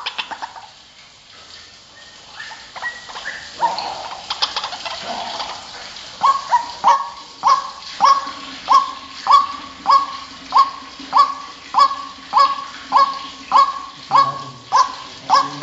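White-breasted waterhen calling: a jumble of uneven calls, then from about six seconds in a loud, evenly paced series of short, downward-sweeping notes, nearly two a second.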